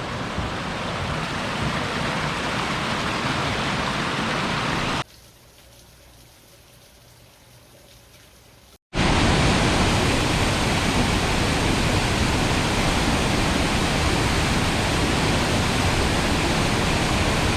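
Steady rush of a mountain river and waterfall. About five seconds in it drops to a much quieter stretch with only a faint low hum. After a brief dropout about nine seconds in, a louder, steady rush of falling water returns.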